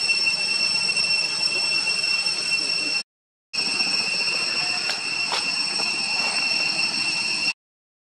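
Steady high-pitched drone of insects, held at an even level, cut off by two brief dead silences, one about three seconds in and one near the end.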